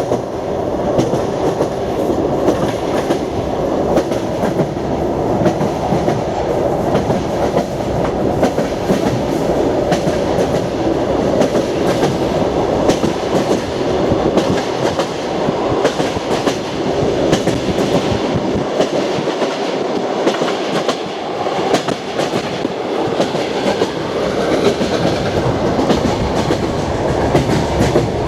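Passenger train car running at speed, heard from inside: a steady rumble with the clickety-clack of wheels passing over rail joints.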